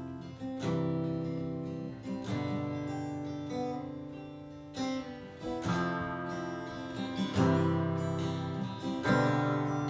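Taylor GS Mini Koa Plus acoustic guitar playing a strummed instrumental intro, with a new chord struck every one to two seconds and left to ring.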